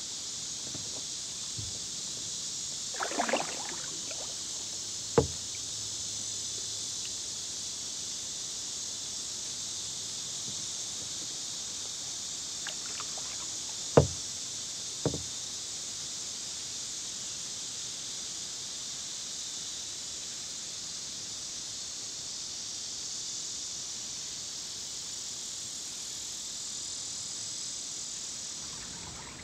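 A kayak paddle knocks against the hull now and then: once about five seconds in, then a loud knock and a lighter one a second apart around the middle, with a brief splash of dripping water near the start. A steady high-pitched hiss runs underneath.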